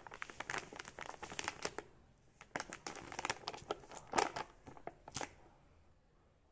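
1 kg Horlicks plastic pouch crinkling as it is handled and turned over in the hand, an irregular run of crackles with two sharper crackles around four and five seconds in, dying away near the end.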